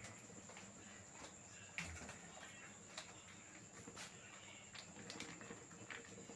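Near silence: kitchen room tone with a faint steady high-pitched tone and a few faint, scattered clicks and taps.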